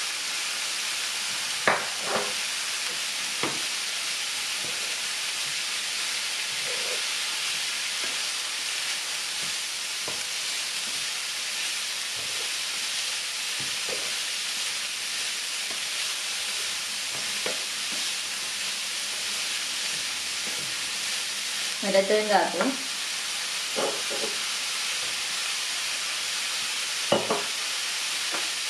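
Grated cauliflower frying in oil in a nonstick pan: a steady sizzle, with a spatula scraping and tapping against the pan now and then as it is stirred.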